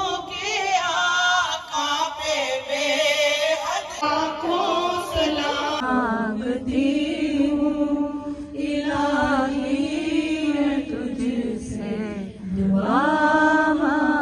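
Women's voices singing a devotional naat into microphones without instruments, the melody wavering and richly ornamented. The voicing changes about six seconds in, to a lower, steadier line.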